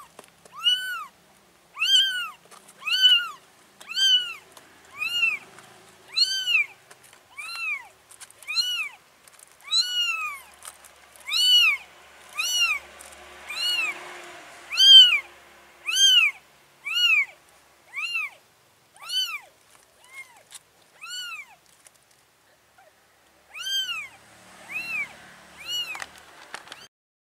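Newborn kitten meowing over and over, about one short high-pitched cry a second, each rising and then falling in pitch.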